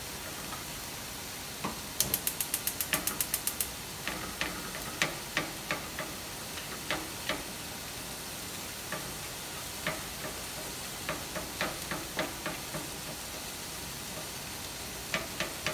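Meat cooking in a frying pan, sizzling softly as the water it has released cooks off. A fast run of about a dozen clicks comes about two seconds in, then single knocks of a utensil against the pan at intervals as the meat is stirred.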